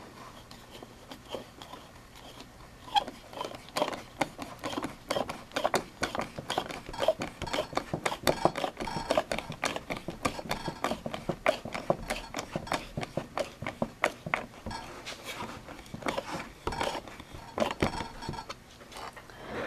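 Rapid, irregular metallic clicking and tapping of a hand tool driving stainless cap screws into a wooden display base. It starts about three seconds in and goes on until near the end.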